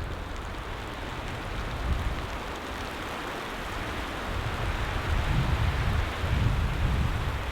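Blizzard wind blowing as a steady hiss, with gusts rumbling against the microphone that grow stronger in the second half.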